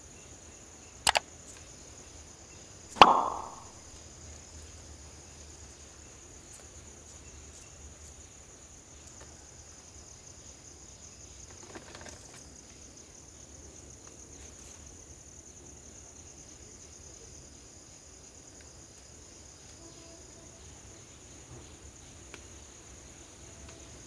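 Sound effects from a subscribe-button overlay: a quick double mouse click about a second in, then a louder click with a short ringing ding about three seconds in. After that, only a faint steady garden ambience with a high, even insect hum.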